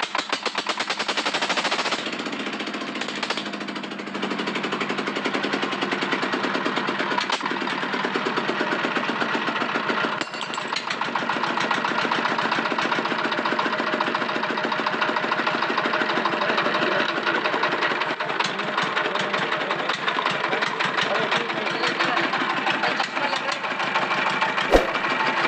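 20 hp Chinese diesel engine running steadily with a fast, even chugging of firing pulses, freshly rebuilt with new piston rings.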